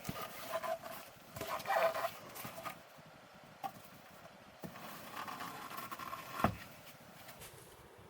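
Hand work on a wooden box: irregular scraping and rubbing in two spells, with a few sharp knocks, the loudest about six and a half seconds in.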